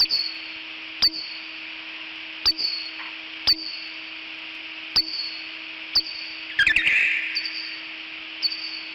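Bat squeaks as a Halloween sound effect: sharp high chirps, each a click followed by a short falling squeak, coming about once a second with a quick flurry a little past the middle, over a steady hiss and low hum.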